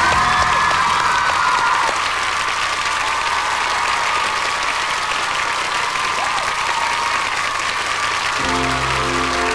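Studio audience of teenagers applauding and cheering, with high-pitched shrieks through the clapping. Near the end, new music with a steady bass line starts up under the applause.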